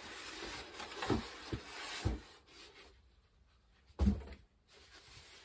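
A foam RC jet fuselage rubbing and scraping against its styrofoam packaging tray as it is worked loose and lifted out. A few light knocks come in the first two seconds, and a louder thump comes about four seconds in.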